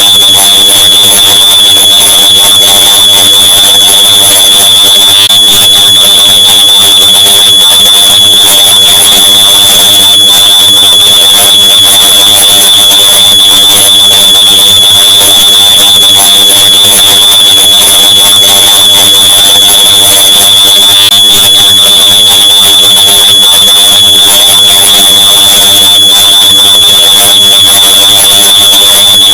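Smoke alarm beep stacked on itself so many times that the separate beeps merge into one continuous, very loud, distorted high-pitched tone. It holds steady with no breaks.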